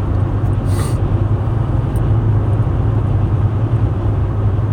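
Steady low drone of a car's engine and road noise heard inside the cabin while driving, with a brief hiss a little under a second in.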